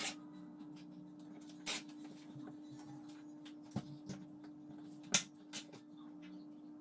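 Paper and a ruler being handled on a wooden table: a few light taps and knocks with faint rustling, the loudest tap about five seconds in, over a steady low hum.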